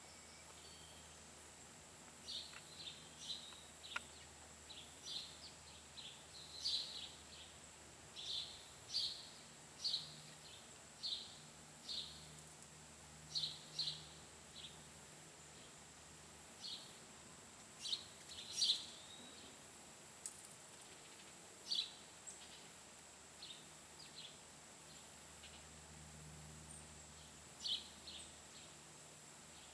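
Red-bellied woodpecker giving a long series of short, sharp calls, irregularly spaced and some in quick pairs. A faint steady high-pitched whine runs beneath them.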